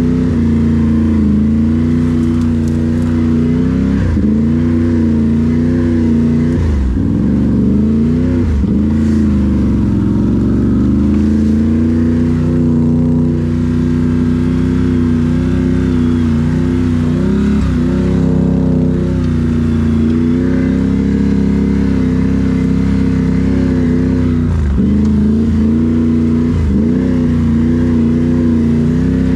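Can-Am Renegade 1000 ATV's V-twin engine running steadily under throttle, its note dipping and climbing back a few times as the throttle is eased off and reopened.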